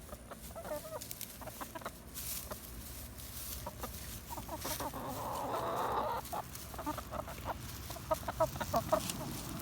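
A small flock of hens clucking in short, scattered calls while they feed on scratch grain, with a louder stretch about five seconds in and a quick run of clucks near the end.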